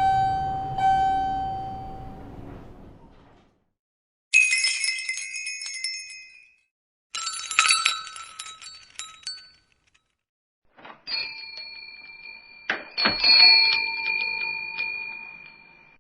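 An elevator chime with the rumble of its doors sliding, then bells hung on a door jingling as the door opens, in several separate bursts of bright metallic ringing.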